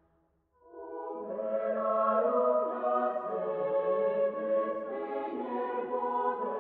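Background choral music: voices holding sustained chords, entering about half a second in after a brief hush and swelling to a steady level.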